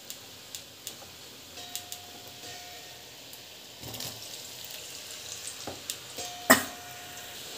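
Hot oil sizzling and crackling in a kadai as gulab jamun dough balls are dropped in, about four seconds in. A single sharp knock sounds near the end.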